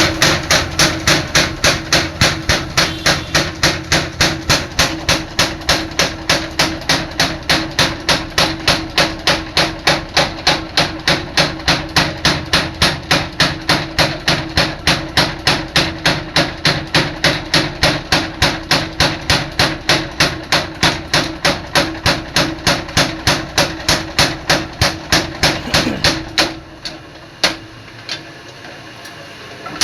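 Rapid, very regular hammer blows on metal at a blacksmith's forge, about four strikes a second, with a steady hum underneath. The hammering pauses about 26 seconds in, leaving a couple of single strikes, and picks up again at the very end.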